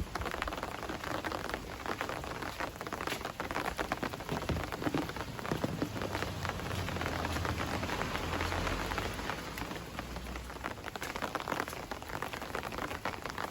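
Homemade rain stick sounding like pouring rain: a dense, steady patter of many fine ticks from grains tumbling down inside, swelling slightly around the middle.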